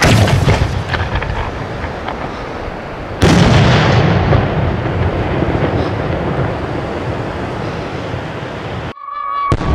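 Italian white rain aerial firework shell: the thump of its lift charge firing from the mortar tube, then about three seconds later a loud bang as the shell bursts overhead, followed by a long rolling rumble that slowly dies away.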